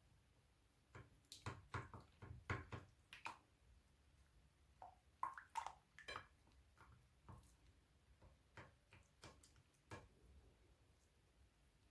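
Crunchy slime being handled, giving quiet, irregular clicks, crackles and squelchy pops, busiest in the first few seconds.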